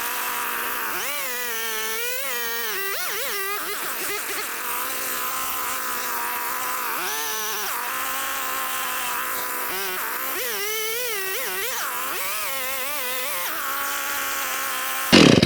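Chainsaw cutting through a log, its engine pitch repeatedly rising and dipping as the bar binds in the cut. It stops suddenly near the end.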